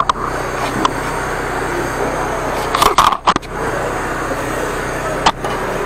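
High-pressure drain jetting machine running steadily: a continuous engine-and-pump hum under the hiss of the water jet, with a few sharp clicks and a brief clatter about three seconds in.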